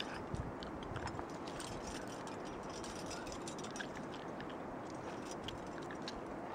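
Light clinking and ticking of climbing hardware, carabiners and cams on a harness rack knocking together as a climber moves, over a steady low rushing noise.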